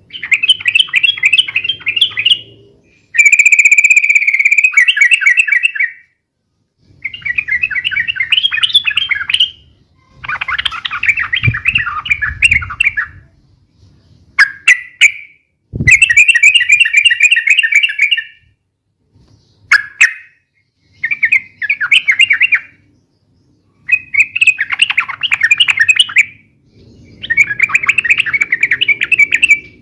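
Yellow-vented bulbul (trucukan) singing noisy, rapid, chattering bubbling phrases, each about two to three seconds long, repeated with short pauses between them.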